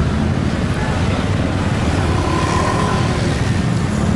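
Street traffic, motor scooters and cars passing on a city road, a steady loud low rumble.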